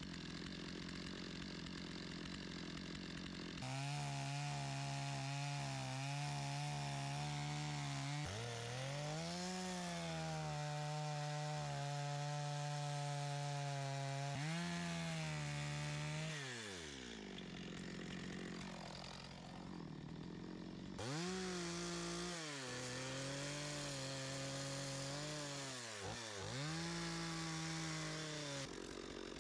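Chainsaw idling, then revved up about four seconds in and cutting wood, its pitch sagging each time the chain bites and climbing again as it frees. Near the middle it drops back for a few seconds, then revs and cuts again before settling back to idle near the end.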